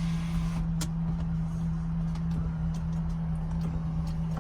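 1998 Lexus SC400's 4.0-litre V8 idling steadily, with a steady low hum and a few light clicks.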